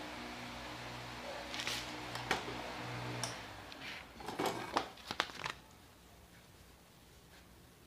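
Handheld hair dryer running with a steady hum, switched off about three seconds in. Then a spell of rustling with a few sharp clicks as the hair is shaken out and handled, fading to quiet room tone.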